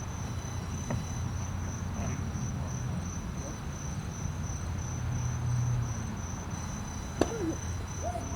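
Insects chirping in a high, steady, evenly pulsed trill, over a low steady rumble, with one sharp click about seven seconds in.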